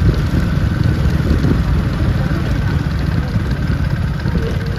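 Motorcycle engine running steadily at low road speed, with a fast, even beat of firing pulses.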